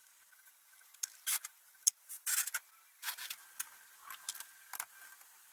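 A series of irregular light clicks, taps and short scuffs, as of things being handled and moved about.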